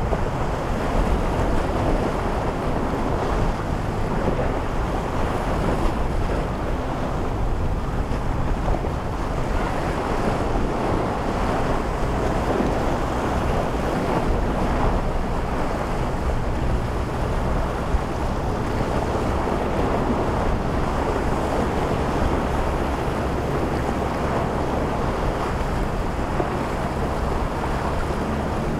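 Steady wind noise on the microphone over waves and surf, with boat engines running underneath.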